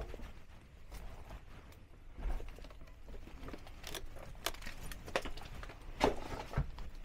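A few scattered sharp clicks and knocks, the loudest about six seconds in, over a low rumble.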